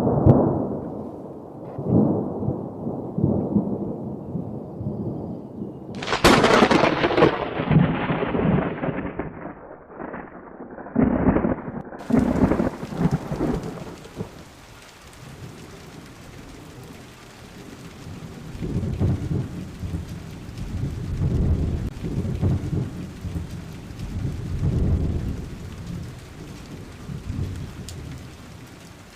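Thunderstorm: deep rolling thunder with a sharp crack about six seconds in, then steady rain hiss with more rumbles of thunder.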